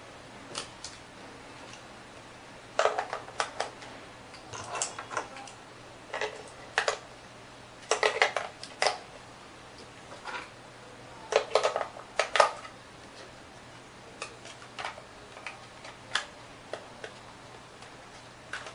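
Plastic clicks and clatter from a toy helicopter's radio transmitter as batteries are handled in its open battery compartment and the plastic cover is fitted back on. The clicks come in short clusters, thickest in the first twelve seconds and sparser after.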